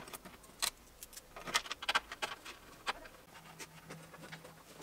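Scattered sharp clicks and light metallic taps of small screws and washers being handled and worked by hand, with a quick cluster of clicks about one and a half to two seconds in.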